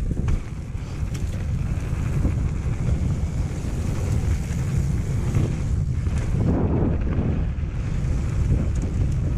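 Heavy wind buffeting the microphone while a mountain bike rolls fast down a wet gravel track, tyre noise from the gravel underneath.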